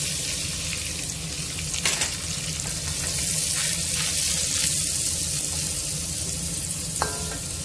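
Prawns frying in melted butter in a wok: a steady sizzle, with a few short scrapes and taps of the spatula against the pan about two seconds in and near the end.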